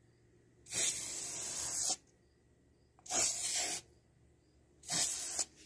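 Aerosol spray-paint can spraying a car engine's valve cover in three sprays, the first a little over a second long and the other two shorter, with short pauses between.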